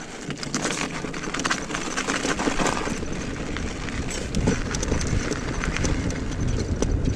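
Tyres of an Onyx RCR electric moped rolling over packed snow and ice, with a continuous crackling crunch over a low rumble that builds toward the end.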